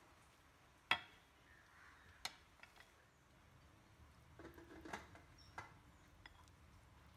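Faint kitchen handling sounds on a glass bowl: a sharp tap about a second in, a few lighter clicks, then a spell of scraping and knocking a little after the middle as chocolate and cream are stirred with a silicone spatula.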